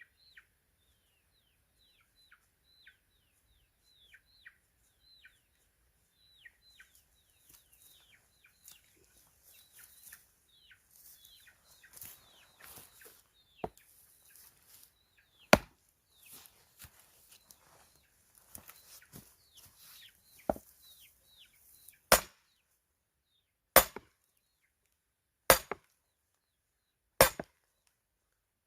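Axe splitting firewood: sharp chops, a few scattered ones and then a steady run about every second and a half in the last part. Quick falling bird chirps repeat through the first half.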